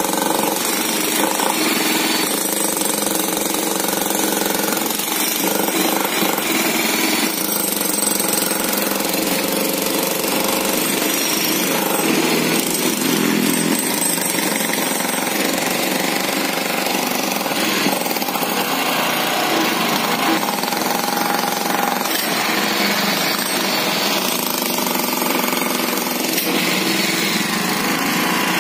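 Electric jackhammer breaking up concrete pavement, hammering continuously, with a portable Nishikawa gasoline generator running alongside to power it.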